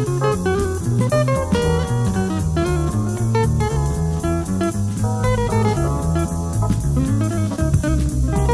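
Jazz instrumental with a guitar playing quick melodic runs over a bass line that steps from note to note and a drum kit keeping a steady cymbal beat.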